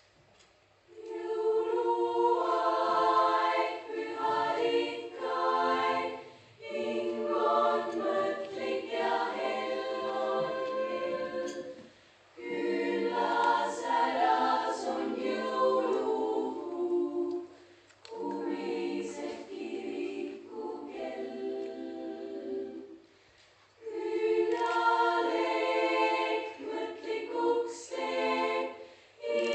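A choir singing, starting about a second in, in phrases of several seconds each separated by brief pauses.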